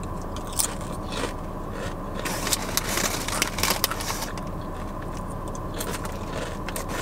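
Sun Chips being crunched while chewed, a few separate crunches in the first two seconds, then denser crackling as the foil chip bag crinkles and rustles under a hand reaching in. A steady low hum runs underneath.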